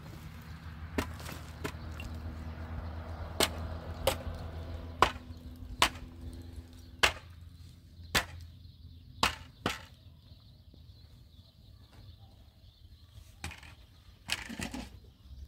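About a dozen sharp blows of a tool striking wood at irregular intervals, roughly a second apart at first and sparser after about ten seconds in. Some blows leave a brief ringing tone.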